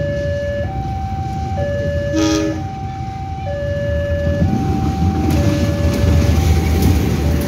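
Level-crossing warning alarm sounding, an electronic signal alternating between two tones about once a second. A short horn toot comes about two seconds in. From about four seconds the rumble of a train passing over the crossing grows louder.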